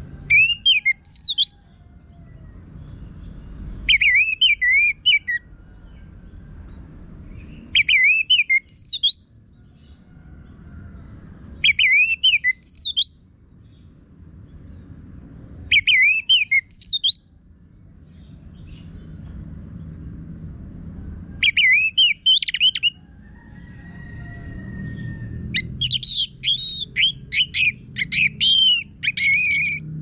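Orange-headed thrush singing: short, loud phrases of quick rising and falling whistles about every four seconds. A longer, denser phrase comes near the end.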